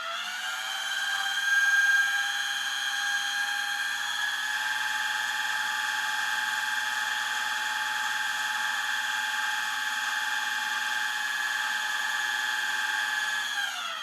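A small high-speed motor whining: it spins up in pitch right at the start, runs steady at one high pitch, and starts to wind down near the end, over a faint low hum.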